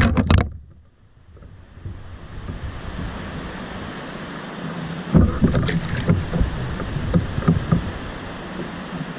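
Steady wind and water noise around a fishing kayak. About five seconds in come a cluster of knocks and splashes, with a few smaller ones after, as a big blue catfish held in a fish grip is handled and released over the side.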